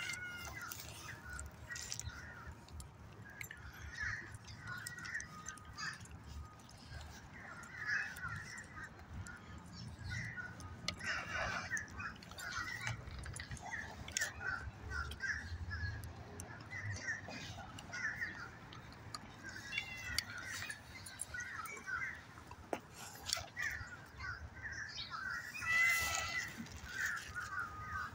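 Wild birds chirping and calling over and over, the short calls coming thick and fast, over a low rumble.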